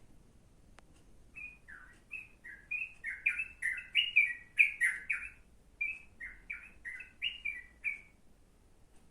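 Yellow-vented bulbul (trucuk) singing a quick run of short, bubbly chirping notes, starting about a second and a half in and stopping about a second before the end.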